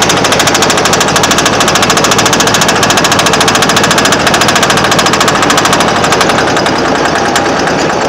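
John Deere EZtrak Z425 zero-turn mower engine running loud with a rapid, even knock; the knock is the fault the owner reports under load.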